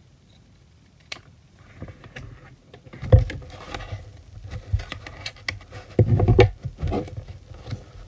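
Scissors snipping through a strip of foil-lined drink carton, with crinkling of the carton as it is handled. A couple of heavier handling knocks come about three seconds in and again around six seconds in.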